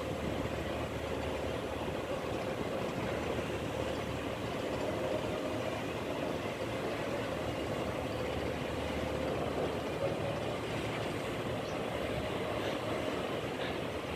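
Steady drone of a CoCo Yacht 42.3 m catamaran ferry's engines as it manoeuvres slowly, with propeller wash churning the water at its stern.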